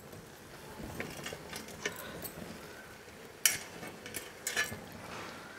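Faint, scattered clinks and knocks of a spoon against a cooking pan, the loudest about three and a half seconds in.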